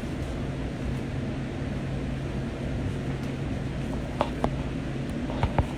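Light-rail train running, heard from inside the car: a steady low rumble with a low hum that stops about five seconds in. Two pairs of sharp knocks sound about four seconds in and near the end, the last pair loudest.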